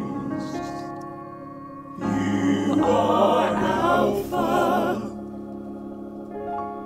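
Church choir singing a slow worship song with sustained organ chords underneath. A sung phrase with vibrato comes in about two seconds in and falls away after about three seconds, leaving the organ chords held.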